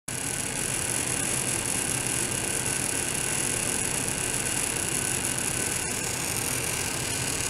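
Audible noise from ultrasonic transducer probes, driven by a function generator, vibrating the bench setup. It is a steady, dense noise with a constant high-pitched whine.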